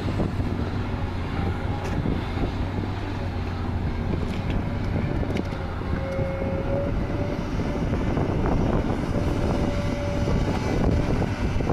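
Long-reach hydraulic excavator's diesel engine running steadily under load as it digs and swings, with a faint higher whine coming and going in the second half.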